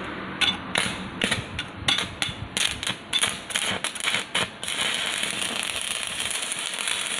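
Stick (MMA) welding arc from a 200 A inverter TIG/stick welder in stick mode: irregular sharp crackles as the electrode is struck, then, from a bit past halfway, a steady hissing arc. The machine welds normally in stick mode.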